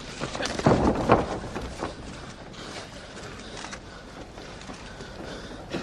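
Arena ambience during a ground-grappling exchange. A loud burst of crowd noise comes about a second in, then falls back to a low steady murmur with scattered sharp clicks.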